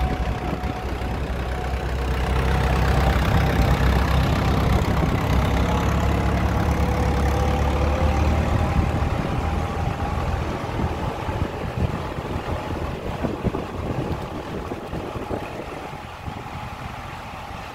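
A red International tractor's diesel engine running as the tractor drives past close by. It fades gradually as the tractor moves off, and a car follows more quietly.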